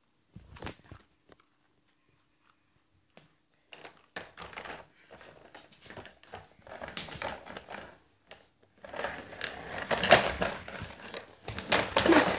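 Rattling, clicking and knocking of a toddler's toy shopping trolley, a metal frame with a red plastic basket, being pushed about. It is nearly quiet for the first few seconds, then clatters more and more, loudest in the last few seconds.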